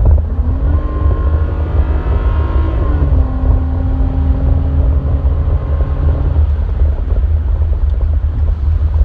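Ram 1500's 3.6L Pentastar V6 with a cold air intake, heard inside the cab on the highway, over a heavy steady road rumble. The engine note rises slightly for the first few seconds, drops to a lower steady note about three seconds in, and fades back into the rumble a few seconds later.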